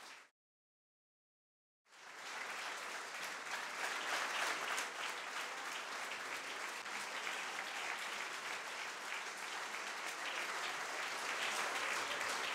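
Audience applauding. The sound drops out to complete silence for almost two seconds just after the start, then the applause comes back and carries on at an even level.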